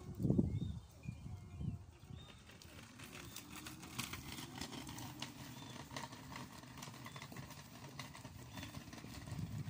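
Hoverboard go-kart rolling slowly over asphalt, its electric motors giving a faint steady hum, with short bird chirps repeating every second or two and light tapping footsteps. A few low rumbles on the microphone in the first two seconds.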